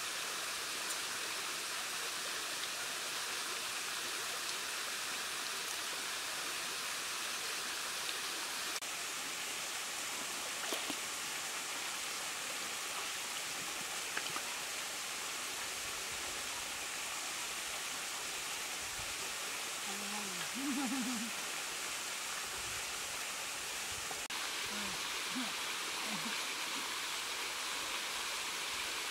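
Steady rushing of running stream water, with a short murmured voice about two-thirds of the way in and again a few seconds later.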